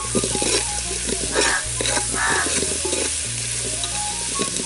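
Sliced onions sizzling in hot mustard oil in an aluminium pot while a spoon stirs them, scraping irregularly against the pot's sides and bottom.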